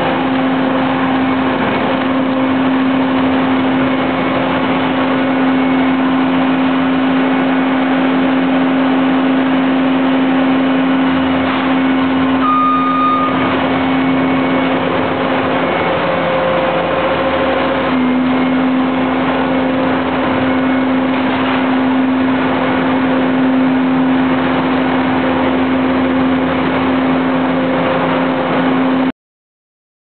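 Skid steer engine running steadily under working load, with a brief high-pitched whine about halfway through and a short change in the engine note a little after it.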